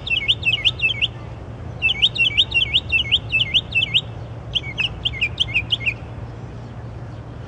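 A songbird singing in runs of quickly repeated, identical sweeping notes, three runs of roughly six to eight notes each, the last ending about six seconds in. A steady low hum sits underneath.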